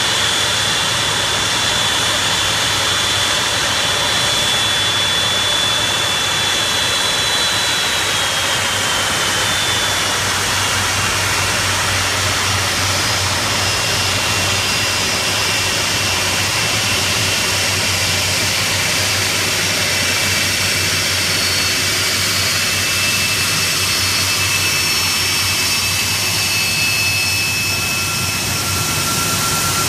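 Boeing 747-400's four Rolls-Royce RB211 turbofans running at taxi power as the jet rolls past: a steady, loud jet rumble with a high whine that drops a little in pitch about eight to ten seconds in, and other whine tones shifting later.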